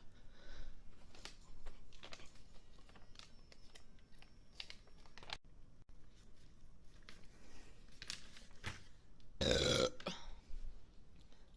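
A person lets out one loud burp about nine and a half seconds in, lasting about half a second. Before it there are only faint scattered clicks and taps.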